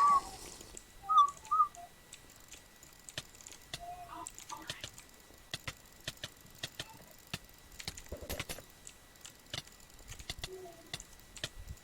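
Two short high chirps about a second in, then a run of sharp, irregular clicks, a few a second, through the rest.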